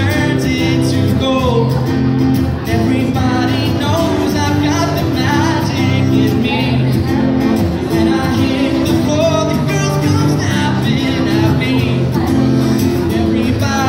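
Live acoustic guitar strummed steadily while a man sings into a microphone, amplified through a PA loudspeaker.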